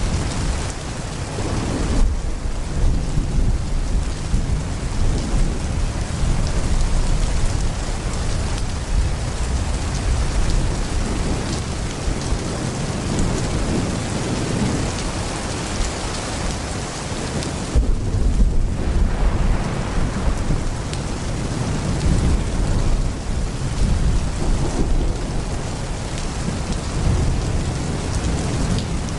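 Heavy rain pouring steadily, with thunder rumbling low throughout and swelling in two louder rolls, about two seconds in and again a little past halfway.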